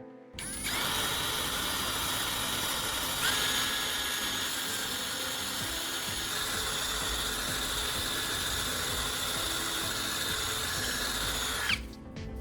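Electric drill running steadily under load as it bores a hole through a round wooden log. It starts almost at once and cuts off about a second before the end.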